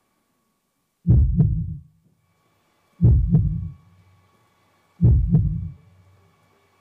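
Deep heartbeat sound effect as a song intro: three double beats, lub-dub, about two seconds apart.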